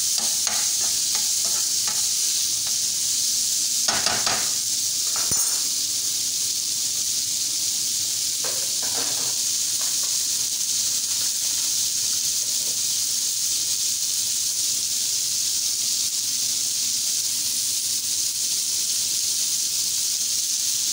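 Strips of marinated chicken sizzling steadily in oil in a non-stick frying pan, with a few short scrapes of a spatula stirring them in the first ten seconds.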